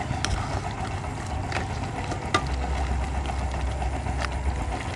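Metal ladle stirring soup in an aluminium wok, clinking against the pan about four times, over a steady low rumble.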